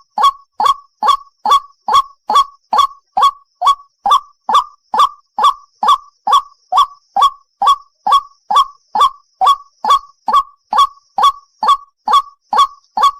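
White-breasted waterhen call, a short honking note repeated steadily a little more than twice a second, played in a loop as a bird-trapping lure.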